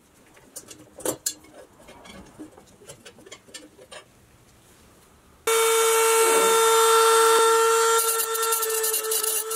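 Small steel parts of a toy tow-truck boom clicking and tapping as they are handled. About five and a half seconds in, a small high-speed rotary tool starts with a sudden, loud, steady whine. Near the end its bit works against the steel boom, adding a rapid rasping chatter.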